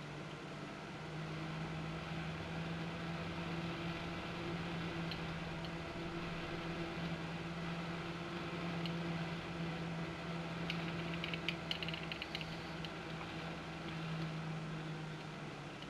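A 120 mm PC case fan running: a steady hum over airflow hiss, the hum settling slightly lower in pitch about a second in. A few light clicks near the end.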